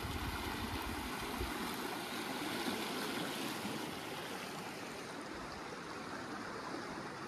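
A broad, fast-flowing river rushing past its bank: a steady wash of moving water, dropping slightly about four seconds in.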